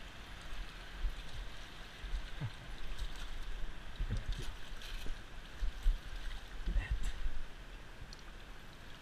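Water lapping and sloshing against a float tube, with light splashes and irregular low bumps as a hand moves in the water.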